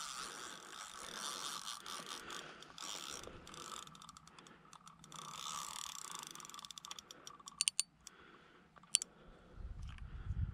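Spinning fishing reel being cranked, its gears giving off a whirring ratchety sound that rises and falls with the turning. A few sharp clicks come near the end.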